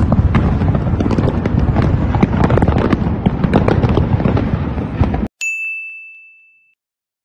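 Fireworks display bursting continuously, a dense run of bangs and crackles over a low rumble, cut off suddenly about five seconds in. A single bright chime then rings and fades out.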